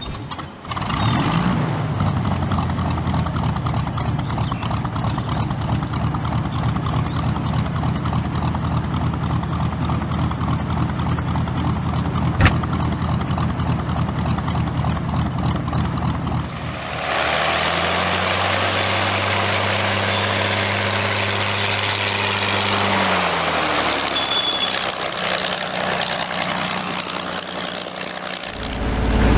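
Ilyushin Il-2 Shturmovik's V12 piston engine catching and coming up to speed about a second in, then running steadily, with one sharp click partway through. Later it sounds brighter with more air rush, and the engine revs up, holds for several seconds and drops back as the aircraft taxis.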